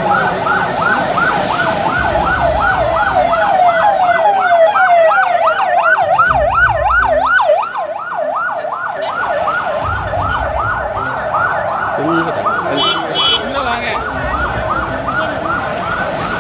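Emergency-vehicle siren of a passing convoy, yelping up and down rapidly about four times a second. In the middle it grows louder and its sweeps become slower and deeper.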